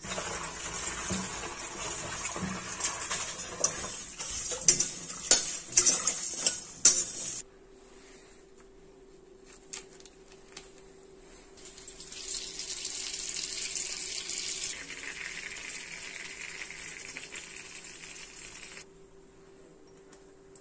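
Cooking at an iron kadai: a hiss with many sharp metal clinks and scrapes of a utensil against the pan for the first seven seconds or so, then a quieter spell, and a second, smoother stretch of hiss in the latter half.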